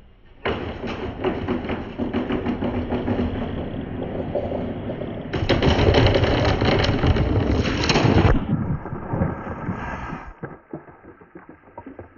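Marbles and wooden balls rolling and clattering along wooden ramps, a steady rumble full of small clicks. It is loudest in the middle, then dies away to scattered clicks near the end.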